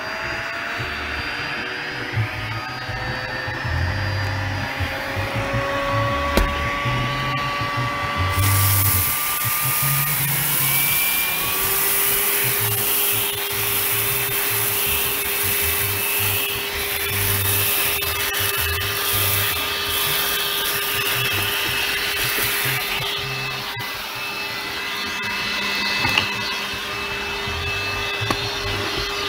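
Minivan's built-in vacuum cleaner running. Its motor tone climbs over the first several seconds and then holds steady. About eight seconds in, a louder airy hiss of suction sets in.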